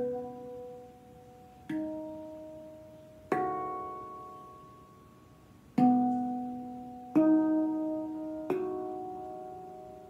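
Axiom C-sharp Celtic handpans, one of stainless steel and one of nitrided steel, struck by hand one note at a time in a note-for-note comparison of their sustain. Six notes sound, each a clear ringing tone with overtones that fades slowly.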